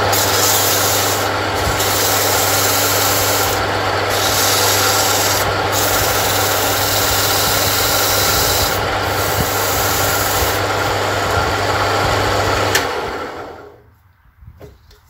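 Homemade wood lathe running on its single-phase 0.27 kW motor with a steady hum, while a strip of abrasive cloth is pressed against the spinning wooden handle: a loud rasping hiss that breaks off briefly a few times as the strip is shifted. Near the end there is a click, the motor hum stops, and the sound dies away within about a second as the lathe spins down.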